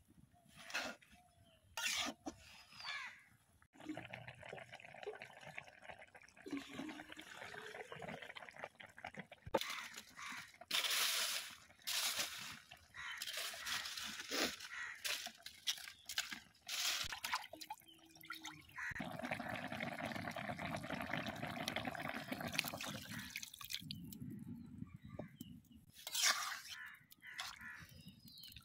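Water splashing and pouring in uneven spells, with a longer steady pour about two-thirds of the way through.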